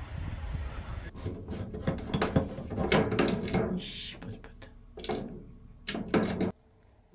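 Irregular plastic clicks and knocks as the broken-off crank handle of a camper van's roof vent is handled and fitted against its winding socket, with a few louder clatters that stop abruptly near the end. A low outdoor rumble runs under the first second.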